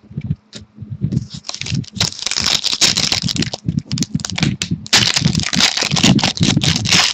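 Crinkling and tearing of a trading card pack's foil wrapper as it is opened by hand. The crackling starts about two seconds in, drops briefly about five seconds in, then grows denser, over dull handling bumps.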